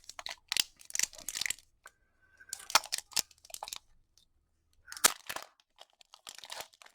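Foil Pokémon booster pack wrapper crinkling and being torn open in several short bursts of crackly rustling with brief pauses between.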